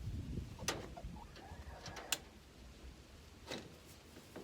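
Three sharp clicks about a second and a half apart, over faint handling noise, during work fastening loose wire on a chicken-run door.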